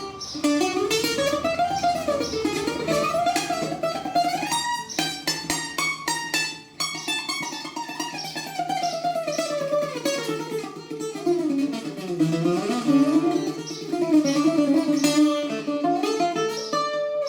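Greek bouzouki played solo: quick picked melodic runs that climb and fall over a steady low drone, with a short break about six seconds in.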